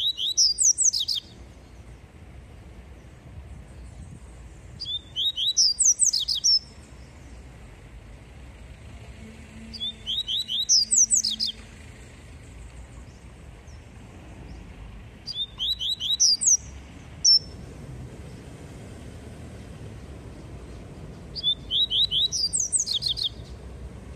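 Caged papa-capim seedeater singing its 'tui tui' song: five short phrases of quick, high whistled notes that rise in pitch, about five to six seconds apart, with one lone high note after the fourth phrase.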